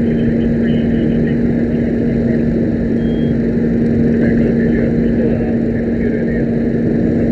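Steady engine-like drone at one constant pitch: a strong low hum over a dense rumble.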